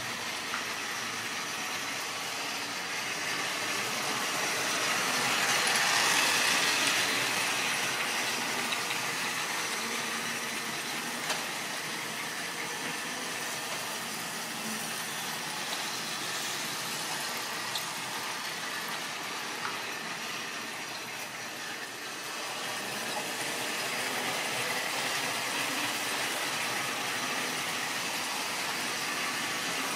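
Model railway trains running: a steady whirr of small electric motors and wheels on the track, swelling as a train passes close about six seconds in and again from about twenty-three seconds in, with a few faint clicks.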